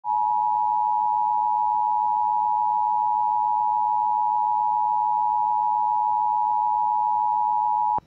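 Emergency Alert System attention signal: the two-tone alert of 853 and 960 Hz sounded together, held steady for about eight seconds and cutting off abruptly. It announces that an emergency alert message follows.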